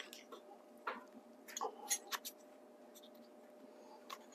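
A few short scraping strokes of a Stihl 2-in-1 file guide across a chainsaw chain's cutters. The file is fitted in backwards, so the strokes do not sound right.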